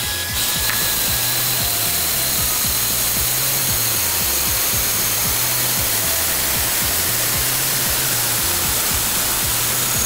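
Bench brake lathe turning a slightly warped disc brake rotor while its cutting bit takes a second resurfacing pass: a loud, steady scraping hiss with a thin high whine, starting a moment in. Background music plays underneath.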